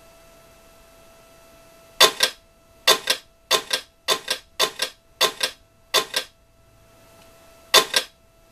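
Sound card of a radio-controlled Tiger I tank model (TK22 unit) playing its machine-gun effect: eight short bursts of about two rounds each, starting about two seconds in, over a faint steady hum.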